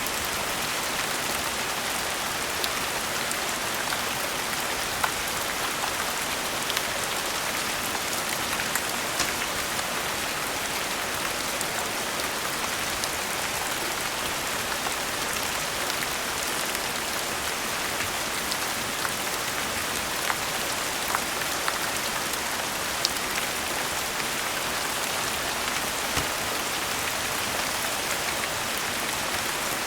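Steady rain falling, an even hiss, with scattered sharp ticks every few seconds.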